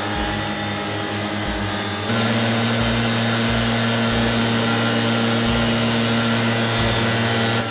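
Petrol backpack leaf blower running steadily at high throttle, its engine drone mixed with the rush of air as it blows dust out of the shed. It gets louder and closer about two seconds in.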